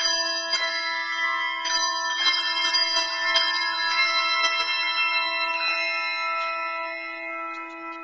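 Handbell choir ringing a piece: many handbells are struck together in chords, with a fresh chord every second or two over a long held low bell, and the ringing fades near the end.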